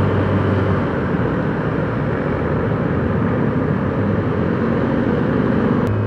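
Honda Click 125 scooter underway in traffic: a steady rush of wind on the microphone and road noise, with the scooter's single-cylinder engine humming underneath.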